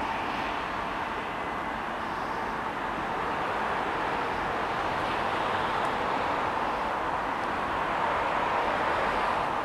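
Steady rushing noise of vehicles, growing slightly louder toward the end: a distant JR East 701 series electric train approaching on the line, mixed with road traffic.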